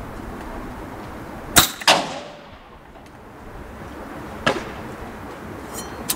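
Suppressed shot from an Edgun Leshiy 2 .25 PCP air rifle: a sharp crack, then a fraction of a second later the pellet's strike with a short ringing tail. Another sharp click comes about three seconds later.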